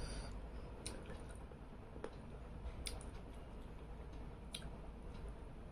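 Quiet eating by hand: a few sharp, scattered clicks and smacks as fried tengra fish is picked apart on a china plate and chewed, over a steady low hum.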